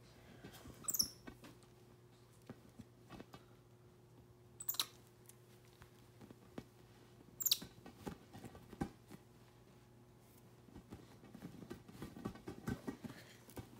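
A white-faced capuchin monkey handling a large inflatable ball: light taps and rubbing, with three short, high squeaks that fall in pitch, and a run of rustling and patting near the end.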